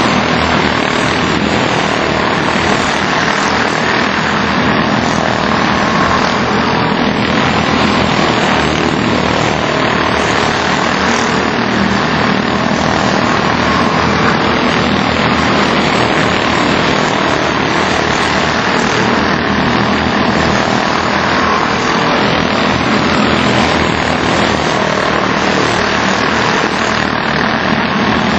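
A pack of Senior Honda quarter midget race cars lapping the oval at racing speed. Their small single-cylinder four-stroke Honda engines blend into one steady, loud drone.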